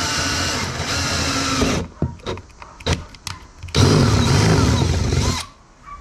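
Cordless drill boring through a plastic kayak hull with a dull bit. It runs steadily for nearly two seconds, gives a few short blips, then runs again for about a second and a half before stopping.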